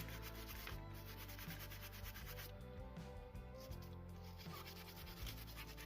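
Faint, steady scrubbing on rusty steel handcuffs as loosened rust is rubbed off after a vinegar soak.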